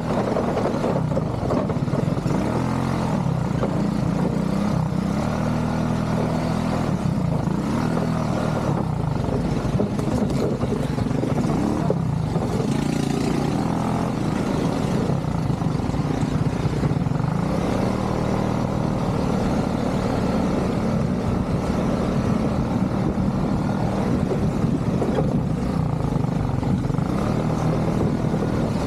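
ATV engine running under way, its revs rising and falling as it is ridden.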